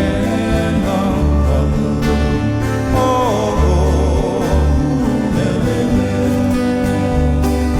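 Background music from a band: a song with singing over a steady bass line and plucked guitar.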